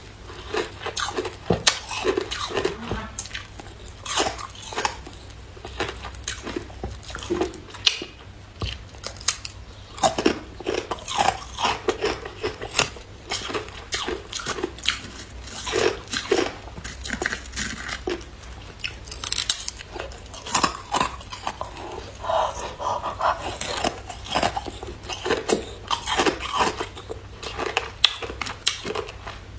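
A person biting and chewing thin sheets of hard clear ice, with many sharp, irregular cracks and crunches as the ice snaps and breaks up between the teeth.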